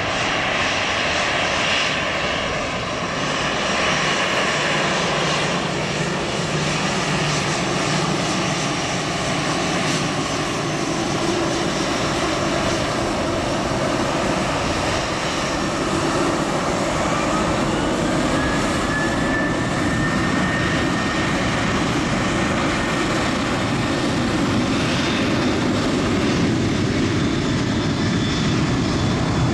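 Airbus A320 jet engines running at taxi power, a steady jet noise with a whine on top. A little past halfway the whine rises in pitch and then holds.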